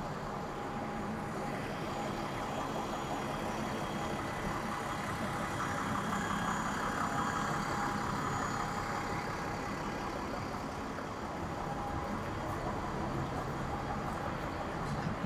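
City street traffic: a motor vehicle's engine running close by over a steady din, swelling a little louder about six to nine seconds in.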